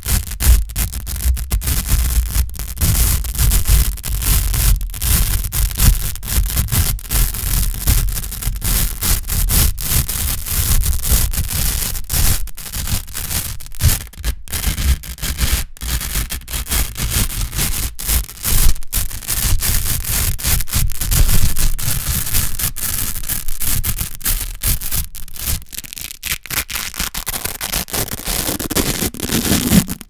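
Velcro hook and loop strips crunching and rasping against each other right on the microphone: a loud, continuous crackling scratch broken by many short gaps.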